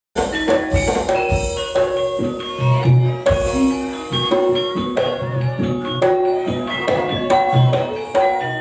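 Campursari band music: struck pitched percussion in the gamelan style and drums playing a rhythmic instrumental passage, starting suddenly at the beginning.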